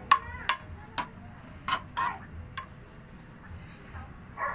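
Metal spatula knocking and scraping against a metal wok while stirring chicken pieces in sauce: about six sharp, irregular clanks in the first two and a half seconds, then quieter.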